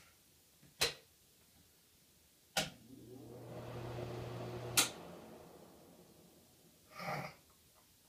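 Broan ceiling exhaust fan switched on with a click. Its motor hums and the blower whirs up for about two seconds, then it is switched off with another click and winds down. There is a single click about a second in.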